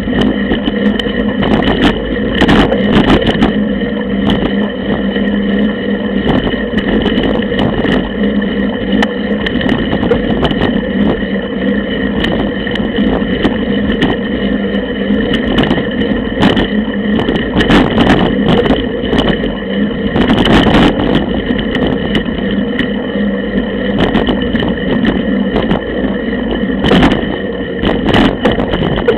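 Mountain bike ridden fast along a dirt forest track, heard close up from the bike: a continuous rumble of tyre and rattle noise with frequent sharp knocks as it jolts over bumps.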